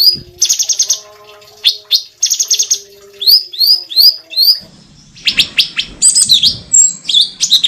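Cucak cungkok singing a loud, varied song of repeated sharp chirps that sweep up and fall away, broken by fast rattling trills, the phrases crowding closer together from about five seconds in.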